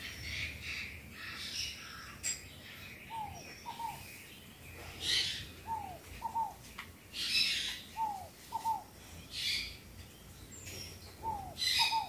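Backyard birds calling: one repeats a pair of short notes that each slide downward, about every two and a half seconds, while sharper, higher chirps break in now and then.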